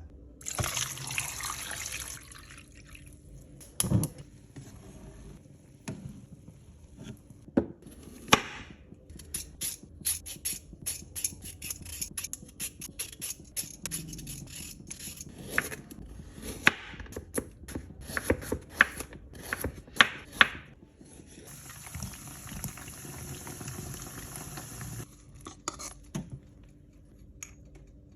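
Kitchen food-preparation sounds: running or pouring water at the start and again from about 21 s, with a long run of sharp clicks and knocks of kitchen utensils in between.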